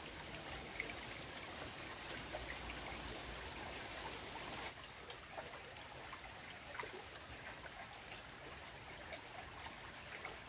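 Small, shallow stream trickling gently over stones, with a few faint clicks.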